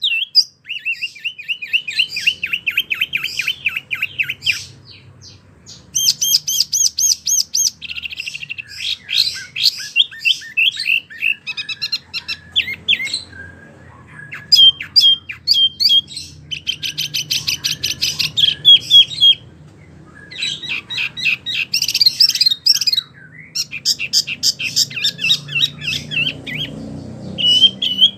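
A wambi mini songbird singing hard and without let-up: phrase after phrase of fast, high repeated notes and trills, each run a few seconds long with brief pauses between.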